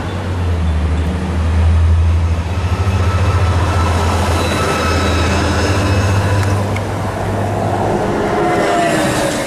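SEPTA trackless trolley (electric trolleybus) approaching and passing close, over a steady low hum. About eight seconds in, as it goes by, its electric traction motor gives a whine that rises in pitch.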